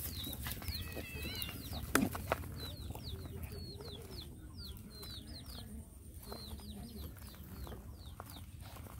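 Birds chirping: many short, high, falling chirps, several a second, with a sharp click about two seconds in.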